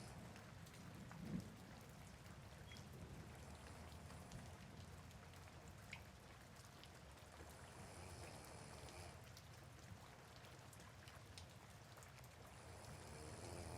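Soft steady rain with scattered drop ticks, and a sleeping person's faint snoring recurring about every four seconds.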